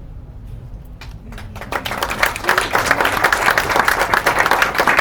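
Audience applause at the end of a song. It starts scattered, swells about a second and a half in, and keeps going as dense clapping.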